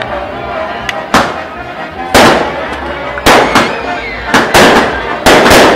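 Aerial fireworks bursting overhead: a string of about eight sharp bangs, about a second apart at first, then coming in quick pairs in the second half.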